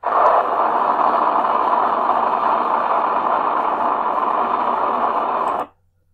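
Recorded rocket launch sound effect: a loud, steady rushing noise of rocket engines that starts abruptly and cuts off suddenly near the end.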